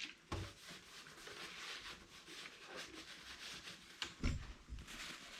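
Faint rubbing and wiping of a cloth over the bike's brake parts, cleaning them with isopropyl alcohol after a brake bleed. There is a dull knock about four seconds in.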